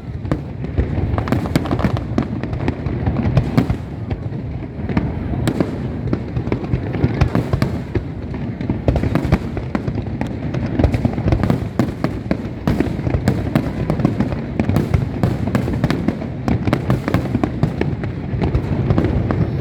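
Aerial fireworks display going off in a rapid, unbroken barrage of booms and sharp bangs.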